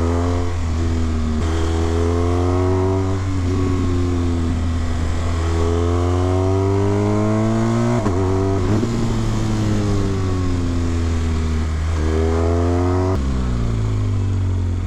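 Motorcycle engine heard from the rider's seat, pulling up through the gears with the pitch climbing in steps between shifts, then falling away as the bike slows, with a downshift near the end. Wind rush runs under it throughout.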